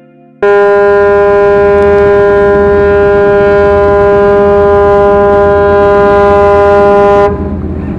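Ship's horn sounding one long, loud, steady blast of about seven seconds that starts suddenly and cuts off sharply, over a low rumble that carries on after it.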